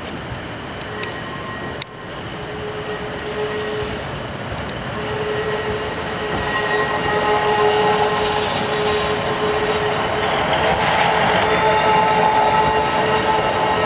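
Two-car Class 156 Sprinter diesel multiple unit moving past, its underfloor diesel engines running with a steady whine over a rumble that grows louder as it nears. A single sharp click about two seconds in.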